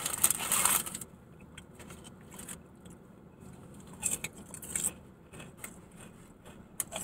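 Eating sounds close to the microphone: a short noisy crunch in the first second, then a few light clicks and scrapes of food and utensils.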